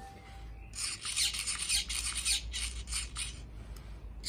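Hands rubbing and handling a hard plastic part, a run of quick, irregular scraping strokes starting about a second in.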